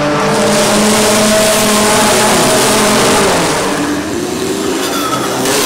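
Formula 4 race cars running at high revs on a street circuit, a steady engine note. It eases about four seconds in, then picks up again with a rising note near the end.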